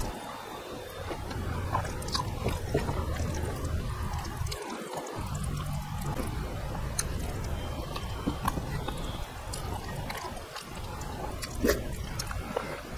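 Close-miked chewing and wet mouth clicks as a man eats rice by hand, with scattered small clicks of fingers gathering food on the plate.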